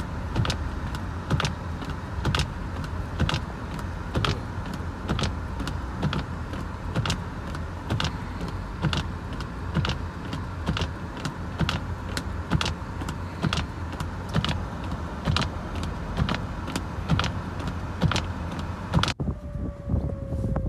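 A vehicle on the move with a steady low road rumble and many sharp clicks, a few a second. Near the end the sound cuts and a single tone slowly falls in pitch.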